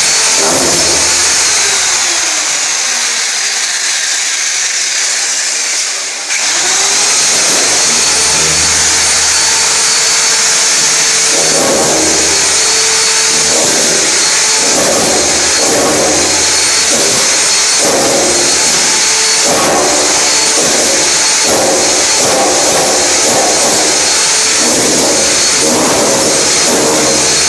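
Hammer drill chiselling a groove into a gypsum-slab wall. The low hammering eases off from about two to six seconds in, then picks up again, and later comes in uneven pulses as the bit bites into the plaster.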